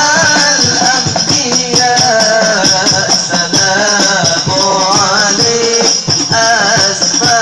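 Hadrah al-Banjari music: a male voice singing a wavering, ornamented devotional melody over a dense, steady rhythm of rebana frame drums with a constant jingling rattle.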